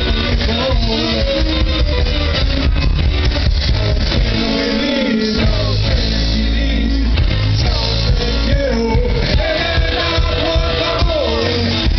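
Blues trio playing loud and live through stage speakers: electric guitars over bass and drums.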